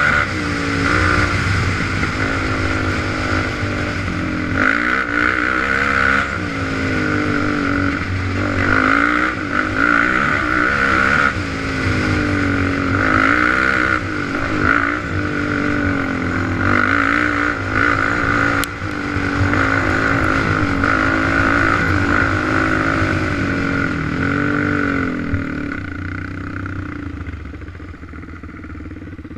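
Suzuki LT-Z400 quad's single-cylinder four-stroke engine under way, revving up and down again and again as the rider works the throttle. It eases off and gets quieter near the end.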